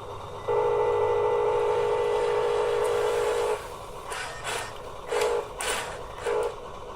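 Huina 1554 RC bulldozer's small electric drive motors whining at a steady pitch for about three seconds, then running in five short bursts.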